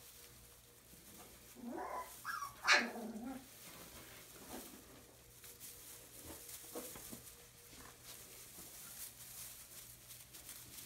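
Puppies playing in straw bedding: about two seconds in, a puppy gives a few short calls that end in one sharp yip, the loudest sound here. Soft rustling of straw and small scuffles follow.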